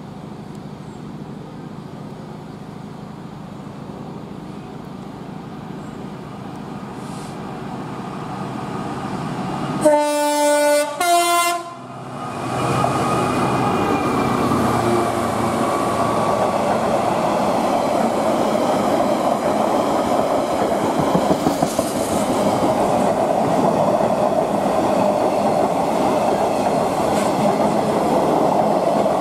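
A DB Cargo Class 66 diesel locomotive sounds its two-tone horn about ten seconds in: two short blasts, the second a little higher, as it approaches with its noise growing louder. It then passes close, loud, with the wagons of a long intermodal container train running steadily by.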